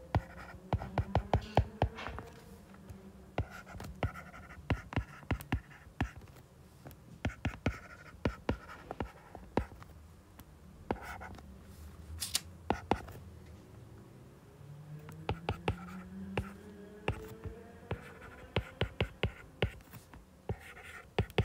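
A stylus tapping and scratching on a tablet's glass screen while handwriting equations. The sharp taps come in quick clusters with short pauses between strokes.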